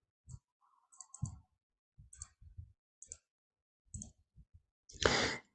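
Faint computer mouse clicks, several separate short clicks spread over a few seconds. A short louder hiss comes near the end.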